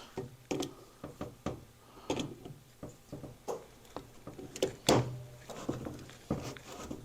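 Irregular metallic clicks and knocks of locking pliers (Vise-Grips) being clamped onto and worked against studs in a Harley-Davidson Ironhead Sportster crankcase, to turn the studs out.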